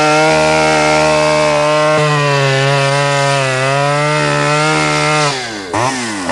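Two-stroke chainsaw running at high revs as it cuts through a waterlogged fallen tree trunk. Near the end it briefly drops in pitch and revs back up.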